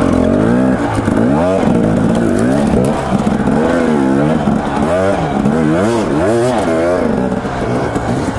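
Dirt bike engine revved up and down in repeated short throttle bursts, its pitch rising and falling about once or twice a second while riding slowly over rough, rutted single track.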